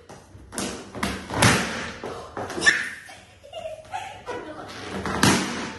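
Latex balloons being squashed and burst by hand on a hard floor: several sharp bangs ringing in the room, the loudest about a second and a half in and another near the end.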